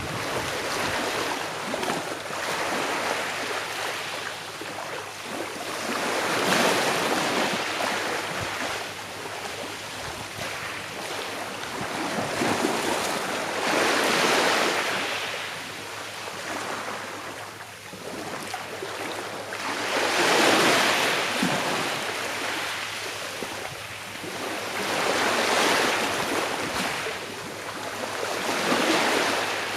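Gentle sea waves breaking and washing on the shore, a steady hiss of surf that swells and fades again about every six or seven seconds.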